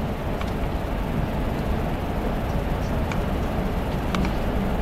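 Steady low rumbling room noise with a few faint clicks.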